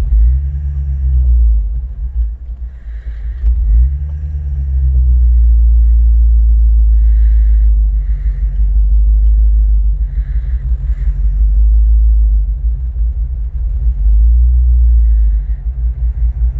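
Land Rover 3.9-litre V8 petrol engine idling roughly, a deep rumble whose level surges and dips unevenly rather than holding steady: the rough idle the owner is asking for help with.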